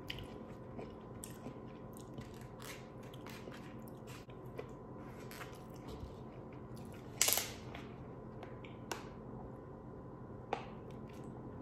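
Close-up mouth sounds of chewing food, with small wet clicks throughout. About seven seconds in there is a louder crackle as a plastic water bottle is handled and uncapped.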